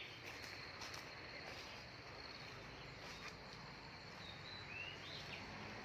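Quiet outdoor ambience: insects droning steadily at one high pitch, with a short rising bird chirp near the end and a few faint ticks.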